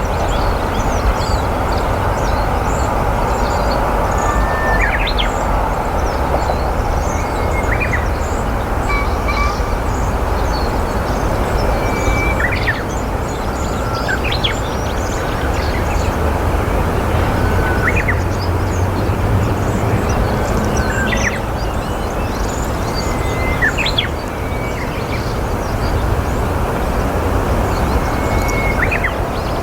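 Meadow bunting calling in short, high phrases, a quick sharp note and a brief level whistle repeated every two to three seconds, over a steady low rumble.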